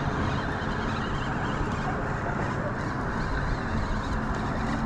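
Steady rushing outdoor noise of wind and passing traffic, with a faint low hum that comes in about two seconds in.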